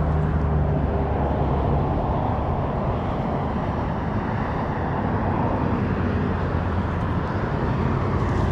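Steady rumble of passing vehicle traffic, with a low engine hum that fades out about two seconds in.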